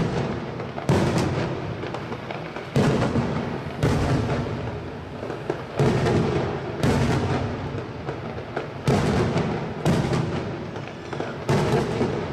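Aerial firework shells bursting: about eight loud bangs, one every one to two seconds, each trailing off in a long echo.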